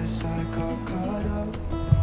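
Background music led by strummed and plucked acoustic guitar.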